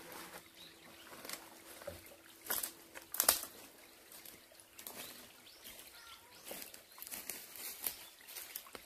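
Irregular rustling and crackling of dry leaves and twigs underfoot on a leaf-littered forest slope, with the sharpest cracks about two and a half and three seconds in.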